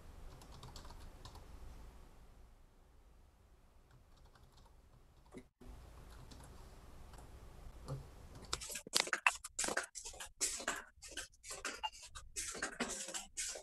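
Typing on a computer keyboard: a few faint, scattered keystrokes, then a quick, continuous run of key clicks starting about eight seconds in.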